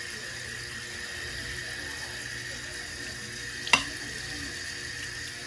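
Dishes being hand-washed at a sink: a steady hiss of water and scrubbing, with one sharp clink about four seconds in.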